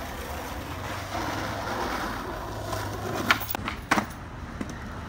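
Skateboard wheels rolling on pavement, a steady rumble that grows as the skater approaches, then two sharp clacks of the board about three and four seconds in as he pops into the air.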